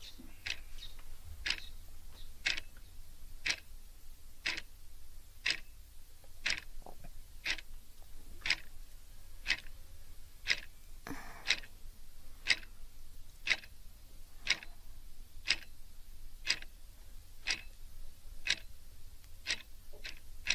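Pocket watch ticking steadily, about one tick a second.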